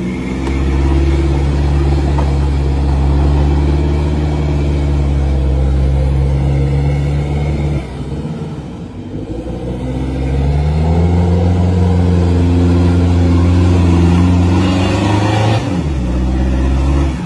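SUV engine held at high revs under heavy load as it tries to drag a boat on its trailer out through deep mud, wheels spinning. The revs drop about eight seconds in, climb back up and hold, then fall again near the end.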